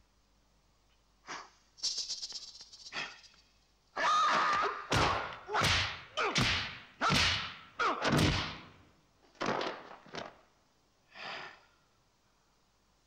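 Dubbed kung-fu film fight sound effects: a rapid run of about eight loud punch and kick hits with whooshes, then a few more spaced out. A short rattling sound comes a couple of seconds in, before the exchange of blows.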